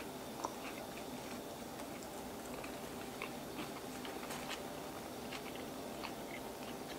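Two people chewing mouthfuls of a crispy chicken sandwich: faint, scattered soft mouth clicks over a low steady hiss.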